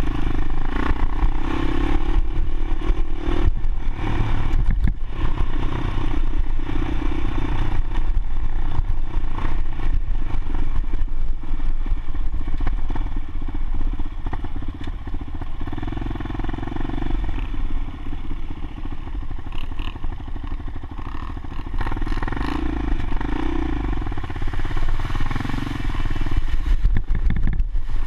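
Motorcycle engine running, its level swelling and easing, with frequent clatter and knocks from the bike over rough ground.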